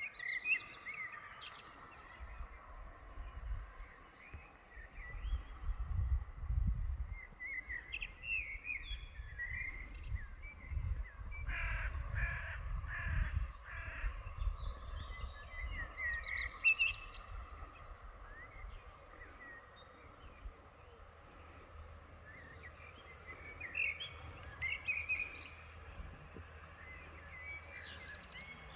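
Birds calling and chirping in an open field, with a run of four harsh, loud calls in a row about twelve seconds in, over a low rumble.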